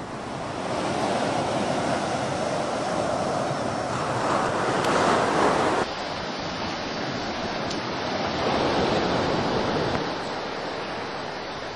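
Ocean surf breaking and washing up a sand beach, swelling loudest about four to six seconds in, dropping suddenly just after, then swelling again around eight to nine seconds.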